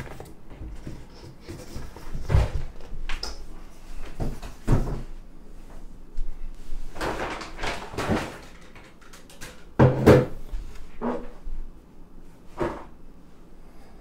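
Scattered knocks, bumps and rustling as things are moved and handled in a search for a lost lock pin, with the loudest thuds about two and ten seconds in.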